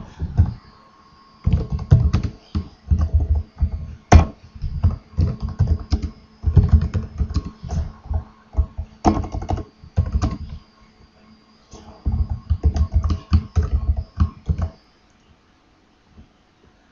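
Typing on a computer keyboard in quick runs of keystrokes with short pauses between them, stopping a couple of seconds before the end.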